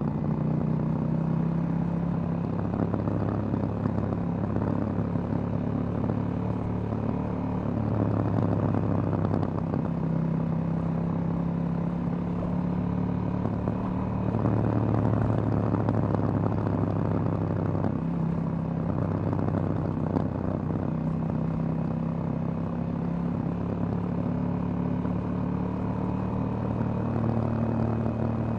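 2018 KTM 790 Duke's parallel-twin engine running through its stock exhaust while riding, the engine note rising and falling in pitch several times with throttle changes, over steady wind and road noise.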